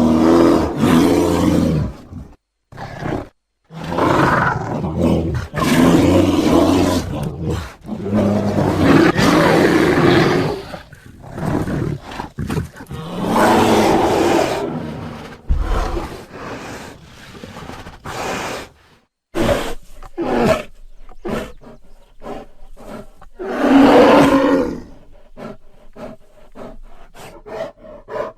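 Bear growling: a series of loud, deep growls, each one to three seconds long with short pauses between them, breaking into shorter, choppier sounds near the end.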